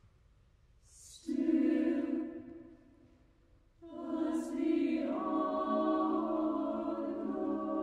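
Mixed chamber choir singing unaccompanied: after a soft pause, a held chord enters about a second in and fades away, then a second entry near the four-second mark swells as lower voices join and is held.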